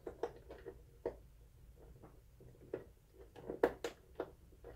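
Irregular plastic clicks and knocks as a cover is pressed and worked onto a plastic projector housing, a tight fit that will not snap in; the loudest knock comes a little after the middle.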